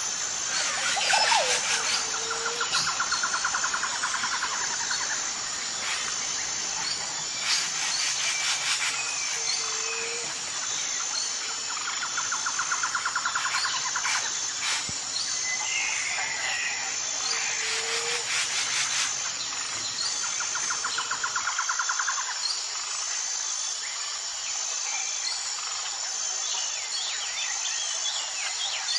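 Tropical jungle ambience: a steady, high insect drone with birds calling over it. A pulsed trill, a low falling call and short crackly bursts come round again about every eight seconds.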